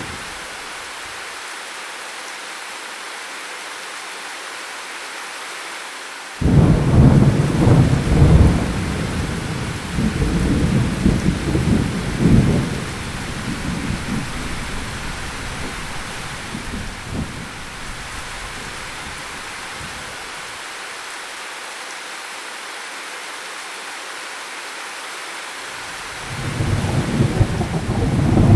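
Steady rain falling throughout. About six seconds in, a sudden loud thunderclap breaks into rumbling that dies away over roughly ten seconds, and another rumble of thunder builds near the end.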